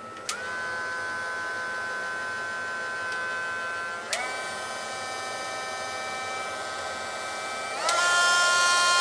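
Dremel 7760 cordless rotary tool running with a steady motor whine, very quiet, as its speed slider is pushed up through the settings: the pitch steps up with a click about a third of a second in, again around four seconds, and again near the end, where it also gets louder.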